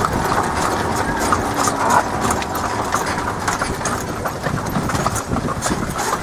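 A horse's hooves clip-clopping on a paved road at a steady walk as it pulls a buggy, with a motor vehicle's engine running underneath.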